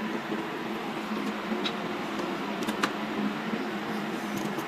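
Steady whirr and hum of a running desktop PC's cooling fans, with a couple of faint clicks as the USB cable is handled and plugged in.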